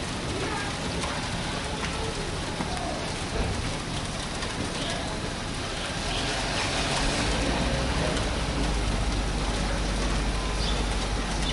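Steady rain hiss, with a low rumble coming in about six seconds in.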